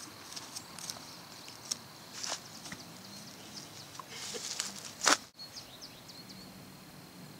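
Outdoor ambience with scattered small clicks and rustles and one sharp knock about five seconds in, followed by a faint steady high tone.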